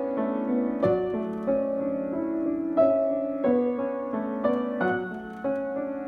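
Upright piano played with both hands: a flowing run of sustained notes in the middle register, with a new note or chord struck about every half second and a few stronger accents.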